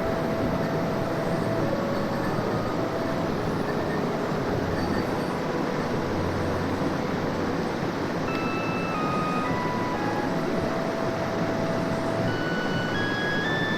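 Steady rush of a mountain stream's flowing water, with a light melody of short held notes stepping up and down over it.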